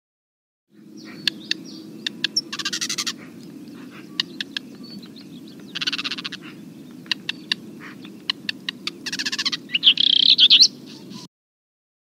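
Field recording of a first-year male eastern black redstart singing over the steady low rush of a river. It sings several short, dense song phrases with sharp ticks scattered between them; the last phrase, near the end, is the loudest. The recording starts about a second in and cuts off abruptly shortly before the end.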